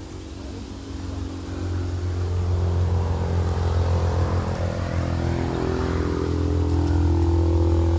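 Engine running steadily with a low hum, growing louder over the first three seconds and then holding loud.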